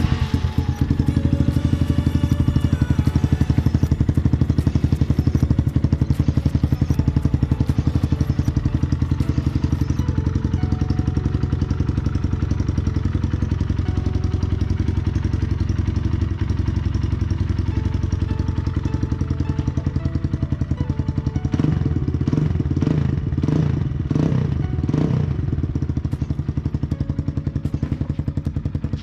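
Kawasaki KLX150BF's single-cylinder four-stroke engine idling loudly through an aftermarket T-4 Pro Pipe aluminium open exhaust, with a quick series of throttle blips about three-quarters of the way through.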